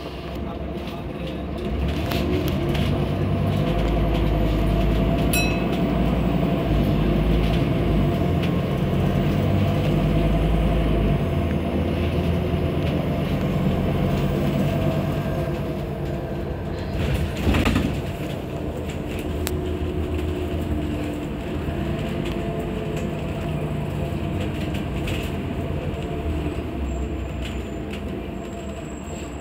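Scania N230UD double-decker bus's five-cylinder diesel engine and drivetrain, heard from the upper deck while the bus is under way. The drone grows louder about two seconds in and stays strong for several seconds, and there is a brief clatter a little past halfway through.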